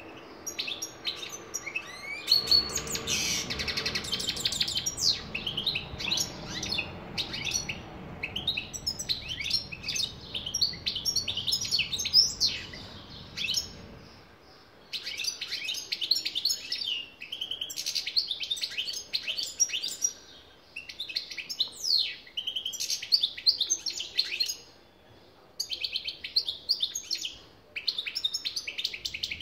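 European goldfinch singing: a fast, continuous twittering song of short high notes and trills, broken by a few brief pauses in the second half.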